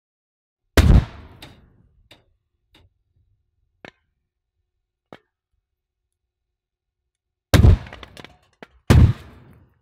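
Butane aerosol cans bursting in a fire: three loud bangs, about a second in and twice near the end, each trailing off over a second, with a few faint pops in between.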